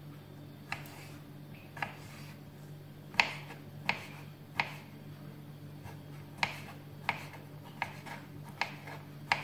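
Kitchen knife chopping pickled cucumbers on a wooden cutting board: about ten sharp knocks of the blade striking the board, roughly one every 0.7 seconds, over a faint steady low hum.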